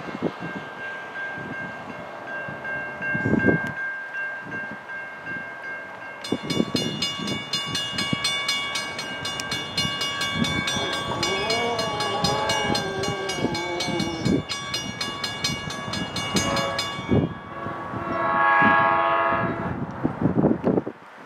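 Grade-crossing warning bells ringing with a steady, regular clang. Around the middle a faint wavering locomotive horn is heard, then near the end comes a louder horn blast of about two seconds from the approaching NJ Transit train led by GP40PH-2B diesel 4200.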